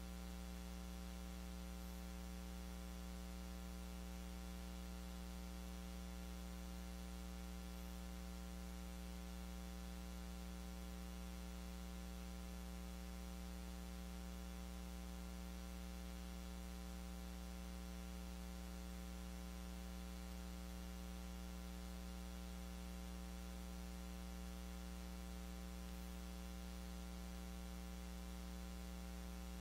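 Steady electrical mains hum, a low buzz with a stack of even overtones, over faint hiss; no voice comes through.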